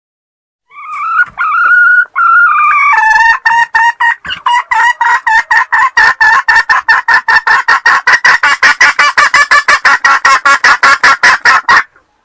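Red junglefowl hen cackling: a few drawn-out calls, then a fast, even run of clucks at about five a second that stops abruptly near the end.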